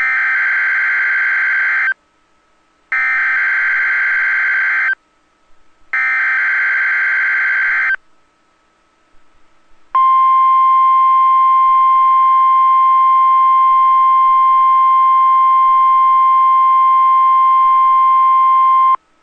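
NOAA Weather Radio emergency alert signal: the SAME data header, three harsh buzzing data bursts of about two seconds each, a second apart. After a short gap comes the 1050 Hz weather radio warning alarm tone, one loud steady beep held for about nine seconds that stops abruptly. Together they mark the activation of the alert system, here for a weekly test.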